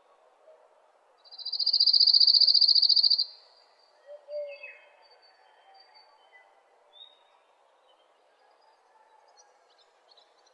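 Birds and insects calling. A loud, fast high trill lasts about two seconds, starting about a second in. Short chirps and a falling whistle follow, then scattered faint calls.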